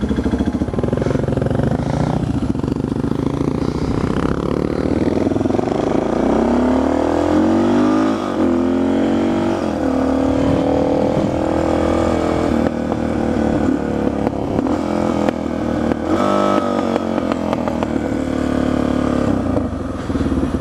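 Suzuki DR650 single-cylinder motorcycle engine pulling away under a rider, its pitch rising and falling back as it shifts up through the gears, mostly between about six and ten seconds in, then running at steady speed.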